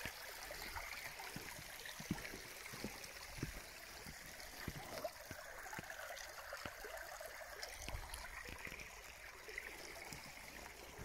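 Small shallow stream trickling and gurgling over stones, faint and steady. A few short, light knocks are scattered through it.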